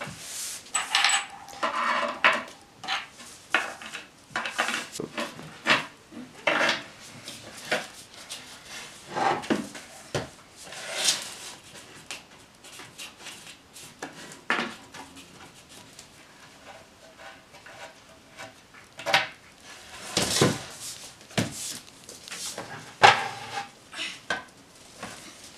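Irregular metallic clinks and knocks of confirmat screws and hex keys against particleboard furniture panels, with short scraping sounds, as flat-pack desk shelves are handled and screwed together.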